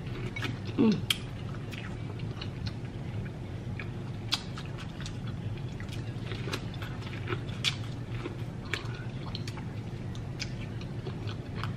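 Close-miked chewing and biting of food, with many small irregular mouth clicks and smacks over a steady low hum.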